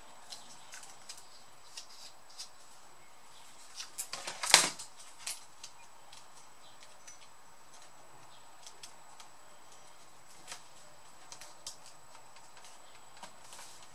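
Small plastic clicks and taps as a replacement keyboard is handled and fitted into a Dell Vostro 3550 laptop's palmrest, with a short, louder clatter about four and a half seconds in.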